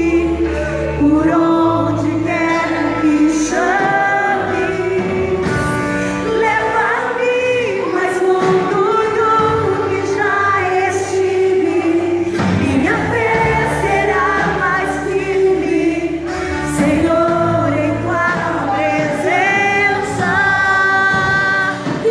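Gospel worship song: a group of singers, women's voices among them, holding long sung notes over band accompaniment with a sustained bass line.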